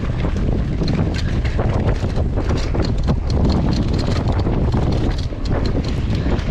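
Mountain bike descending fast on a dirt trail: wind buffeting the microphone over the rumble of the tyres, with rapid, irregular clattering knocks as the bike rattles over rough ground.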